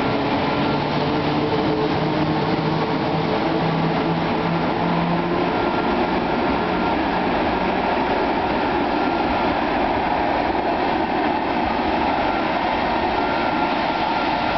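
EP09 electric locomotive pulling a passenger train away from the platform, with a whine that rises slowly in pitch over the first several seconds. The coaches then roll past with a steady rolling noise on the rails.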